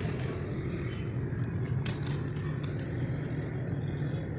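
Steady low background rumble, like distant traffic, with a few faint clicks about two seconds in.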